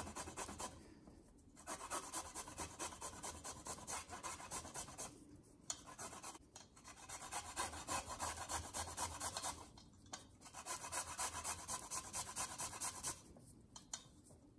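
Fresh ginger being grated on a stainless-steel rasp grater, making quick repeated scraping strokes. The strokes come in several runs, with short pauses between them.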